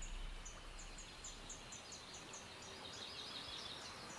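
Faint birdsong: short high chirps repeated a few times a second, joined about halfway through by a denser twittering. Music fades out at the start.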